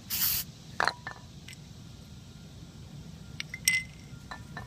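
A short burst of aerosol carburetor cleaner spraying, followed by several light clicks and clinks of small parts being handled.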